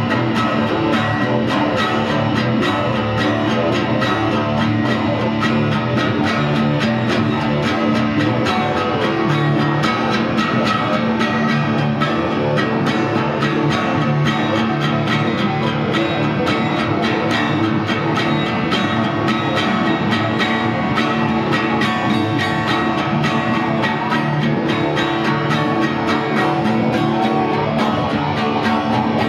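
Two guitars played together: a steel-string acoustic guitar strummed steadily and an electric guitar playing along, in a loose jam.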